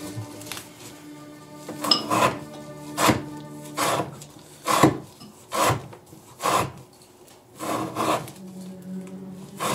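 An ELMAX-steel knife slicing through rope again and again, about one rasping cut a second.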